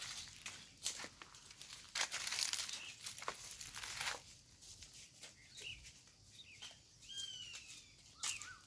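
Goats rustling and crunching dry fallen leaves as they graze and step about, in irregular bursts, loudest from about two to four seconds in. Near the end a bird calls a few short falling chirps.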